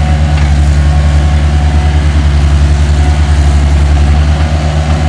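Engine of heavy earthmoving equipment running steadily at close range, a deep, evenly pulsing throb.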